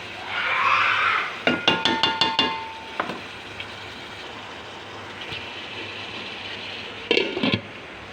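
Cooking in a pan: a short swell of sizzling, then a quick run of about six ringing metal clinks as a metal utensil strikes the pan, with another brief clatter near the end.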